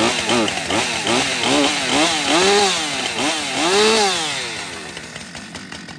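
Husqvarna two-stroke chainsaw, just started after sitting unused for months, revved in quick throttle blips with the pitch rising and falling two or three times a second. Two longer revs follow, then it drops back and fades near the end.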